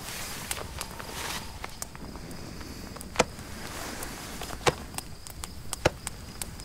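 Quiet night ambience with a steady high insect drone. Over it are soft rustles of clothing from a close embrace, and three sharp clicks about three, four and a half and six seconds in.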